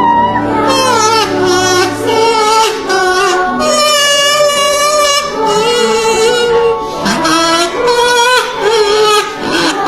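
Music with a woman singing, her held notes wavering with vibrato over instrumental accompaniment.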